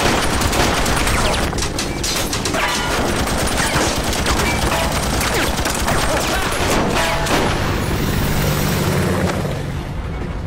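Dense automatic gunfire, a continuous barrage of rapid shots with booming impacts.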